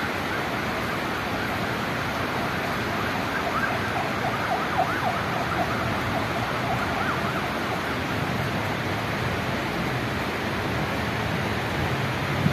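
Steady hiss of heavy rain falling, with a faint warbling tone through the middle.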